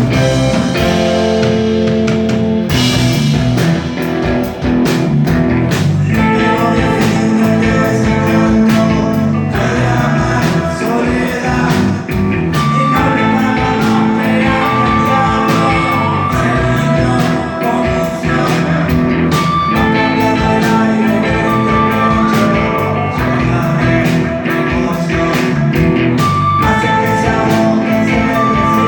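Rock band playing live: electric guitars over a steady drum beat, with sustained guitar notes ringing through.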